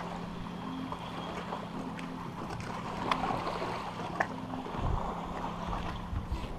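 Steady low hum of a bow-mounted electric trolling motor, with a few faint clicks and some low rumbling thumps of wind on the microphone toward the end.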